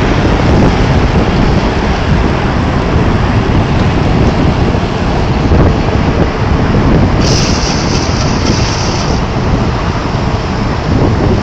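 Strong wind in a snowstorm blowing over the microphone: a loud, steady low rumble, with a higher hiss joining for about two seconds some seven seconds in.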